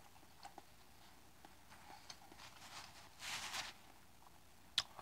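Quiet room tone, with a faint brief rustle a little over three seconds in and a soft click near the end.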